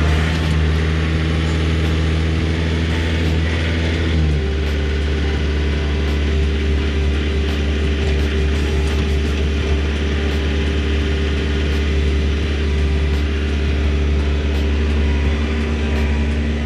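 Compact utility tractor's diesel engine running steadily at raised throttle while its front loader scoops and lifts a bucket of dirt. The engine note shifts about four seconds in as the load changes.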